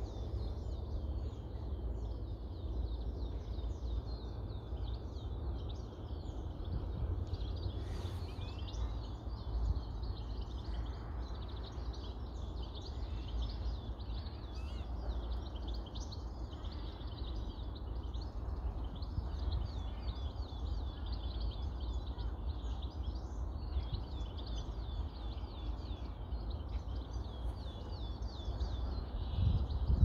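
Many small birds chirping and twittering continuously, with a steady low rumble of wind on the microphone.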